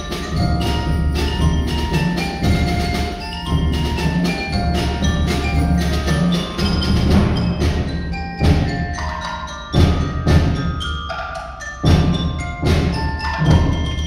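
Small student percussion ensemble playing a tune on mallet percussion, struck bell-like notes over a sustained low line. In the second half several sharp, loud hits cut in, about a second or two apart.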